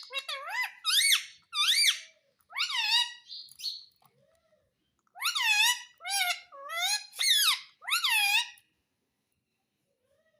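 Pet parrot calling in a run of high, squeaky notes, each sweeping up and down in pitch, in two groups of several calls with a pause of over a second between them; the calls stop about two seconds before the end.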